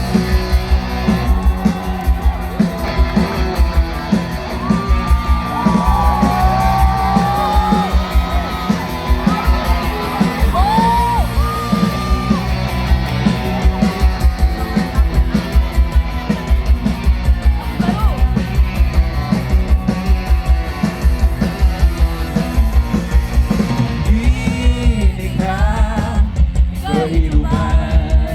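Rock band playing loud: a fast, driving drum beat under guitars, with singing or shouting over it.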